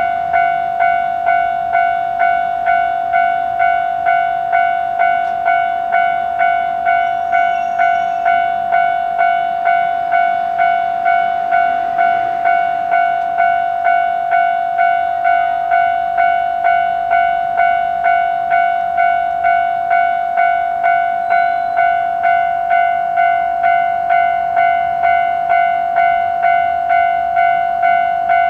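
Japanese railway level-crossing warning bell ringing steadily, about one and a half evenly spaced strikes a second, with the crossing signal activated.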